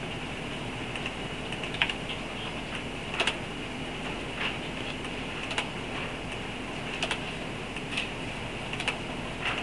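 Short, sharp light clicks at uneven intervals of roughly a second, over a steady hiss.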